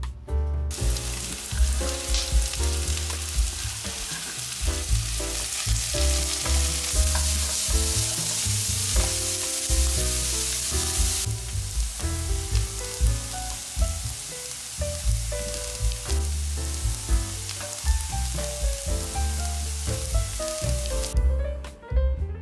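Food sizzling as it fries in a hot pan, starting about a second in and stopping shortly before the end, over background music with a steady beat.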